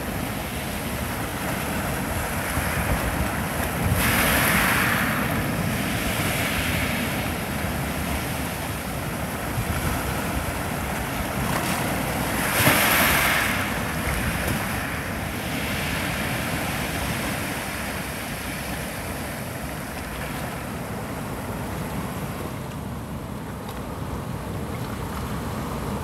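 Heavy surf, raised by an approaching typhoon, breaking over rocks and washing up the shore: a steady rush of water with two louder breaking waves, about four seconds in and about thirteen seconds in.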